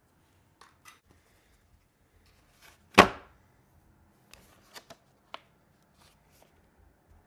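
A cardboard model-train box set down on a wooden tabletop with one sharp thump about three seconds in, among lighter taps and clicks of the box being handled.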